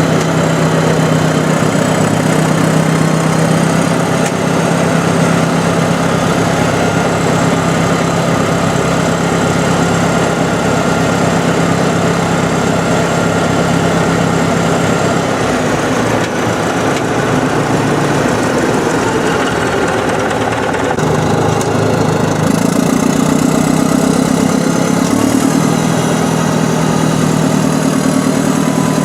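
Diesel engines of Caterpillar heavy earthmoving equipment (the DW20 scraper and D7E bulldozer) running while moving dirt. The engine drone is steady and loud, and its pitch shifts about halfway through and again about three-quarters of the way in.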